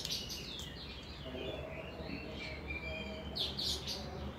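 Small birds chirping: many short, high chirps and quick pitch glides, some in rapid little clusters, over a faint low hum. A short click at the very start.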